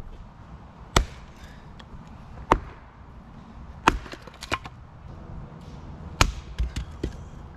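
Firewood being chopped: about four hard blade strikes into wood, roughly a second and a half apart, with lighter knocks between them.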